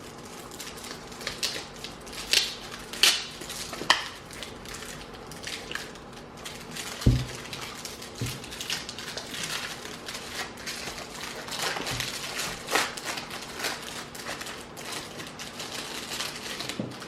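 Chocolate bar wrappers being peeled, picked at and handled: scattered crinkling, crackling and small clicks, with a soft thump about seven seconds in.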